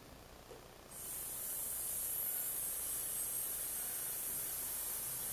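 A woman breathes out on a long, steady "sss" hiss like a snake, starting about a second in: a singer's breath-management exercise, an unforced, supported exhale held as steady as possible.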